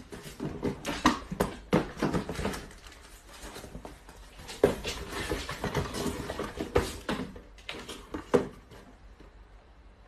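Cardboard boxes being picked up and set down on a tiled floor: an irregular run of light knocks and scuffs that thins out near the end.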